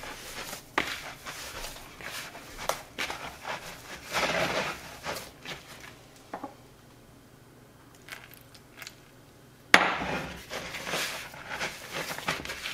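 Hands kneading and squeezing corn masa dough in a glass bowl: soft squishing and rubbing strokes with light knocks against the glass. It goes quieter for a few seconds past the middle, then a sharp knock.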